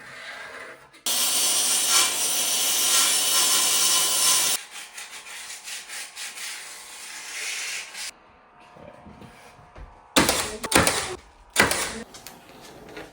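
A power tool cutting a wooden cabinet filler strip for about three and a half seconds, stopping abruptly. It is followed by a run of quick rubbing strokes on the wood, and several loud knocks near the end.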